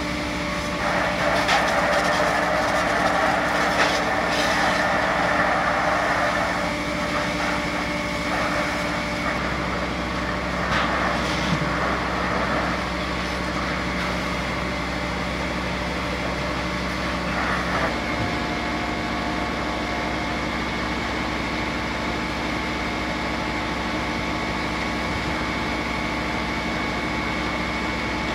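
Fire truck's engine and pump running steadily, a drone of several held tones, with a rushing hiss over it for the first several seconds.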